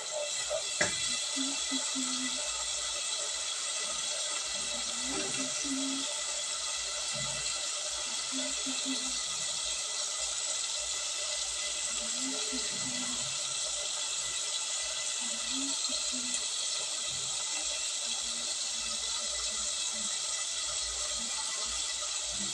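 Steady hiss of onions and grated tomatoes sizzling in a cooking pot, with one sharp knock about a second in.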